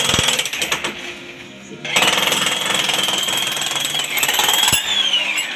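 Electric demolition hammer running: a rapid hammering over a high motor whine, which rises and then falls near the end.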